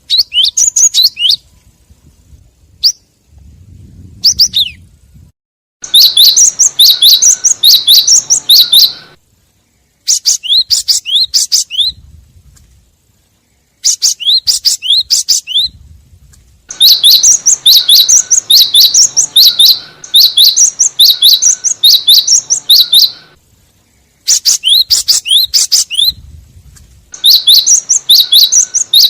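Cinereous tit (gelatik batu) calling in a lure-call recording. It gives bursts of fast, high, chattering chirps, about four notes a second. The bursts last from a second to several seconds, with short pauses between them.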